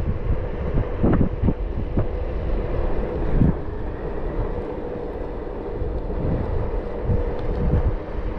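Wind buffeting the microphone in uneven low gusts, over a faint steady hum.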